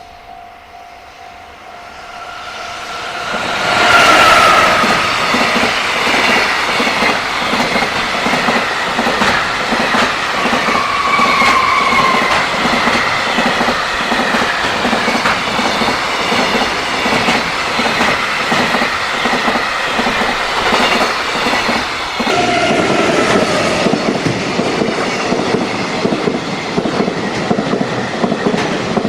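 A freight train passes over a level crossing. The crossing's warning bell rings at first, then the train comes up loud about four seconds in and its wagons clatter over the rail joints in a steady clickety-clack, with a few short squealing tones.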